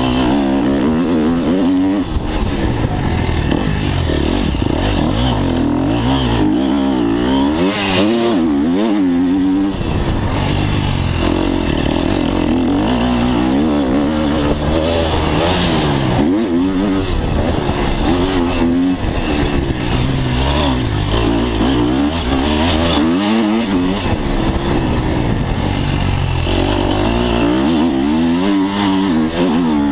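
Motocross bike engine running hard through a lap, its pitch rising and falling again and again as the rider opens and closes the throttle.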